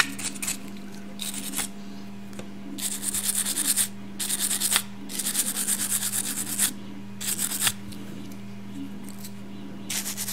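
Brass wire brush scrubbing the nipple of a Gaggia Classic steam valve, mechanical cleaning of the valve body. It comes in several bursts of quick back-and-forth strokes, with short pauses between them, over a steady low hum.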